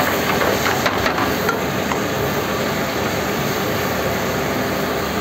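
Steel ladle stirring thick khichdi in a pan on a gas burner, with a few light knocks in the first two seconds, under a loud steady rushing kitchen noise.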